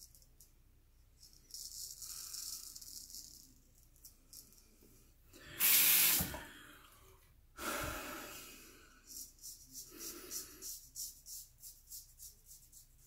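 Gold Monkey straight razor scraping through lathered stubble in short, scratchy strokes, a quick run of them at about three a second near the end. Two louder whooshes, like breaths, come midway.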